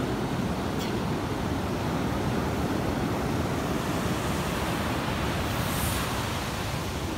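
Ocean surf washing onto a sandy beach: a steady, even rush of breaking waves.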